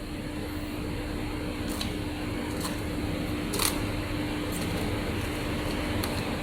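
PP bonder heat press welding machine humming steadily with a constant low tone, with a few light clicks and taps scattered through, the clearest about halfway.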